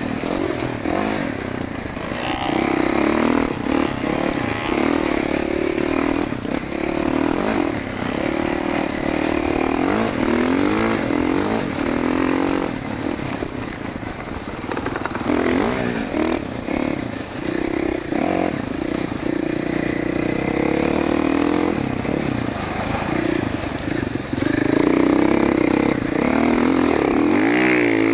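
2021 GasGas MC450F dirt bike's single-cylinder four-stroke engine under way, its revs rising and falling with the throttle and gear changes. It gets louder near the end, where the pitch rises as the bike heads up a sand dune.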